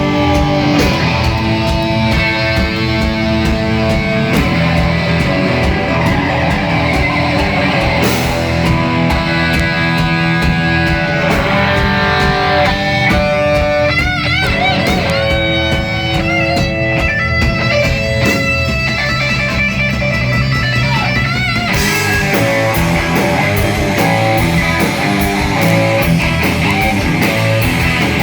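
Hard rock music with distorted electric guitar over a steady beat, with bent, wavering guitar notes around the middle.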